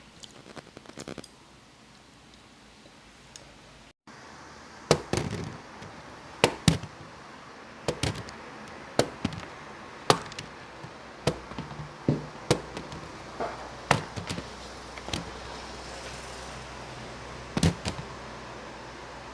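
Sharp clicks of utensils on a plate, roughly one a second, over a steady hiss. Plausibly chopsticks on a plate while the freshly fried zucchini pancake is eaten.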